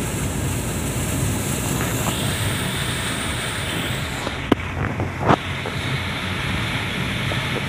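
A vehicle driving through floodwater, heard from inside the cab: a steady rush and slosh of water against the vehicle over the running engine. Two short sharp knocks come about four and a half and five and a half seconds in.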